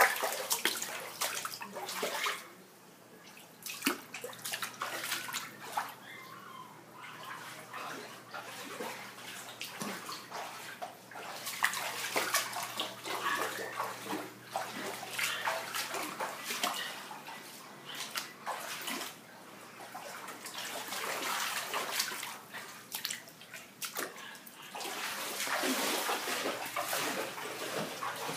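Water sloshing and splashing unevenly, with many small irregular splashes and a brief lull about two to three seconds in.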